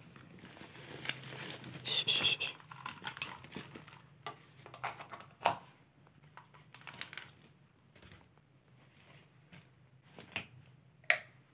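Plastic wrapping and tape on a coiled LED strip light crinkling as it is handled, with scattered light clicks and knocks from the cables.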